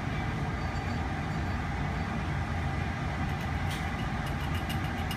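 Steady low rumble of a laboratory fume hood's airflow and exhaust fan. A few faint light ticks come in the last second and a half.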